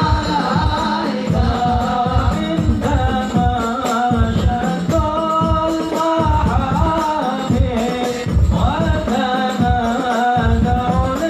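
Group of men singing an Islamic devotional shalawat together, the melody held in long sung lines, over a steady beat of frame drums (rebana/hadroh).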